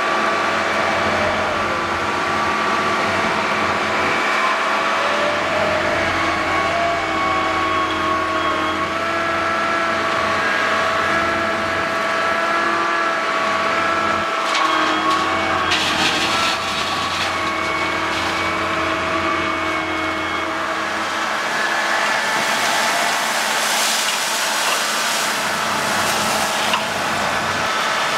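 Diesel engine of a hydraulic excavator running steadily, its pitch rising and falling with the hydraulic load as it digs and swings, with truck engines running alongside. Twice a longer rush of noise, gravel pouring from the bucket into a steel tipper body.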